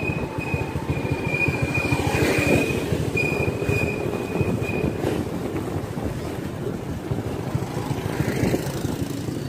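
Motorcycle riding along a street: a steady rumble of engine and wind on the microphone, with a thin high-pitched squeal that comes and goes for the first five seconds or so, then stops.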